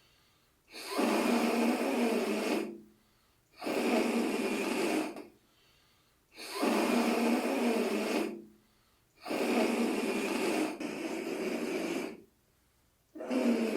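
Air blown in repeated pushes through a balloon cut open at both ends, its slit rubber end fluttering with a rasping, snore-like sound: a model of a slack windpipe showing how snoring is made. Four blows of two to three seconds each with short pauses between, and a fifth starting near the end.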